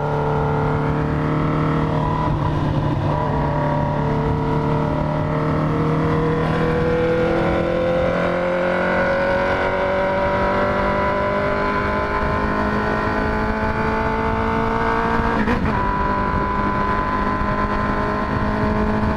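Honda CB650F inline-four running through a full stainless Atalla exhaust while riding at speed, the engine pulling in one long gear with its pitch rising slowly and steadily through most of the stretch.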